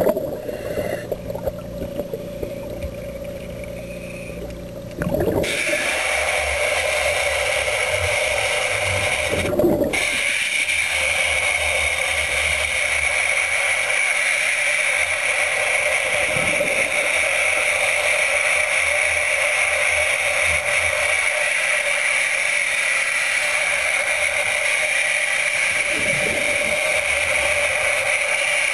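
Underwater chainsaw heard through the water: a steady hum, then from about five seconds in a louder, steady running whine with a rushing noise, the saw running on without a break.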